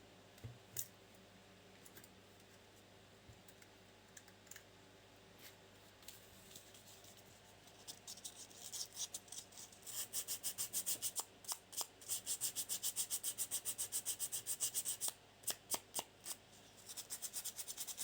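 Quick, even rubbing or scrubbing strokes, several a second, starting about halfway through and stopping shortly before the end, as the old plastic tape measure is worked by hand. A couple of small clicks sound near the start.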